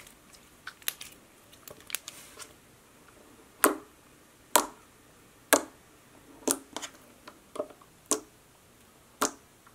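Pink Flarp noise putty being poked and pressed with the fingertips, giving sharp, sticky pops and clicks about once a second as the fingers push in and pull out.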